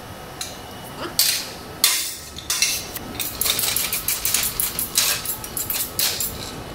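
Hand wire brush scrubbing an aluminium square-tube joint in rapid back-and-forth strokes, starting about two and a half seconds in. Before that, two sharp metallic knocks.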